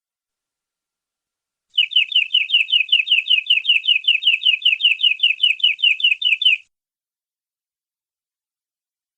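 Domestic canary singing one rapid trill: a single falling note repeated about six times a second for some five seconds, starting about two seconds in and stopping abruptly.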